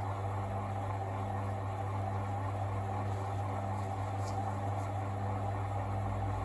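Gorenje SensoCare washing machine running with a steady low hum, with no knocking from the bricks inside.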